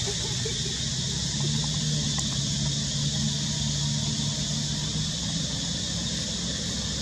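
Steady outdoor background noise: a high, even hiss, with a low engine-like hum that swells about a second in and fades out after about five seconds.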